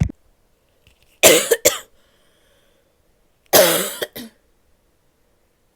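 A woman coughing in short fits: a brief cough right at the start, a quick run of three coughs about a second in, then a longer cough followed by a short one about halfway through.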